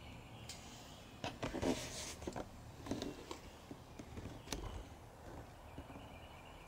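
Irregular scuffs, rustles and a few sharp clicks from someone moving about with a handheld camera in a small stone chamber. They come thickest a little over a second in and again near the middle, over quiet room tone.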